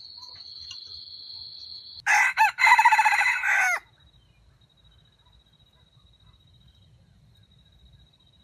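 A wild red junglefowl rooster crows once, a short crow of under two seconds about two seconds in. A faint steady high-pitched whine runs underneath.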